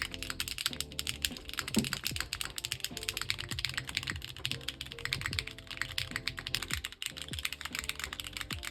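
Continuous fast typing on a custom mechanical keyboard: a dense run of key clacks, with background music underneath.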